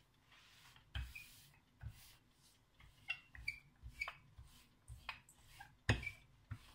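Wooden rolling pin rolling out soft dough on a floured wooden board: irregular soft knocks as the pin meets the board, the loudest about six seconds in, with faint squeaks and rubbing between strokes.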